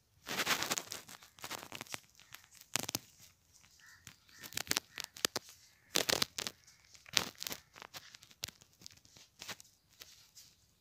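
Irregular crinkling and scraping handling noises close to the microphone: short rustles come and go, with the loudest about half a second in and again around 6 and 7 seconds.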